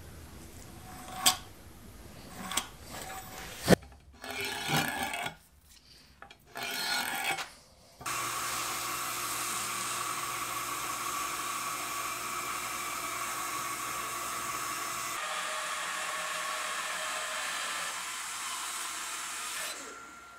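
Pencil scratching and a small steel square tapping and rubbing against a split birch log, with a few sharp taps. About eight seconds in, a Rikon 14-inch bandsaw starts to be heard running steadily, cutting through the birch log, and it fades out near the end.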